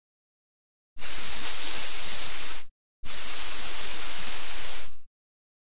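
Two loud bursts of steady hissing noise, each about two seconds long, starting and stopping abruptly with a brief gap between them: an edited intro sound effect.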